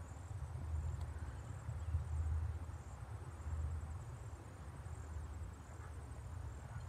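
Outdoor rumble, most likely wind buffeting the microphone, swelling and easing, with faint high chirps repeating every second or so.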